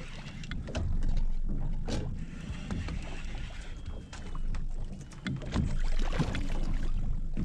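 Water slapping against the hull of a small fishing boat afloat, with a choppy low rumble of wind and scattered short knocks on the boat.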